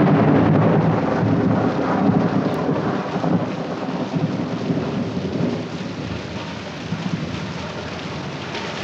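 Heavy rain with a long roll of thunder, loudest at the start and slowly dying away.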